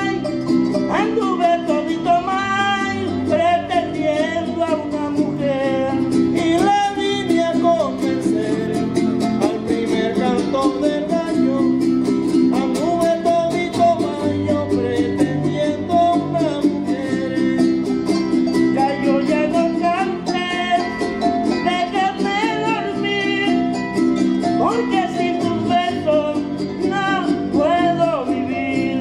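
Son jarocho played live: a man's voice singing over a jarocho harp and a small strummed guitar.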